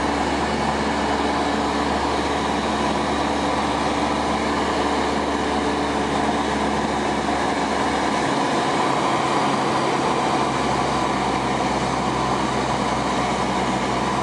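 Steady drone of a Cessna light aircraft's engine and propeller, heard from inside the cabin in flight. Its lowest note shifts about eight seconds in.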